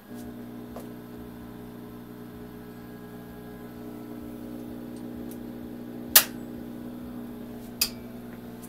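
A tower UPS's inverter transformer is running on battery under a heavy load, which the owner estimates at 1500 to 1800 watts. It gives a steady, low, buzzing growl that starts abruptly and cuts off at the end, and the owner doesn't like the sound. Two sharp clicks come about six and eight seconds in, the first the loudest.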